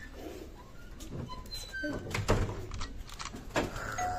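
Knocks and clatters of a loft door being opened as someone goes through it, the loudest about two seconds in and another shortly before the end, with a few short high chirps in between. Near the end a two-note electronic chime begins.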